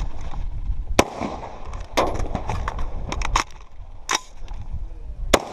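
Semi-automatic AR-style rifle firing single shots at irregular intervals, about six sharp cracks spaced roughly a second apart. The shooter's gear and gravel rustle in the first second.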